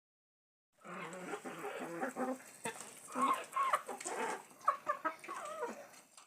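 Chickens clucking in short, irregular calls, starting about a second in.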